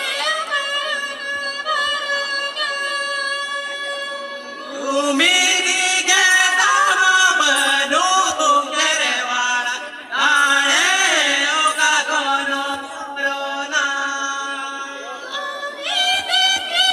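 Singing of a Santali folk song: long held notes at first, then a louder melody that rises and falls from about five seconds in, with a brief break near ten seconds.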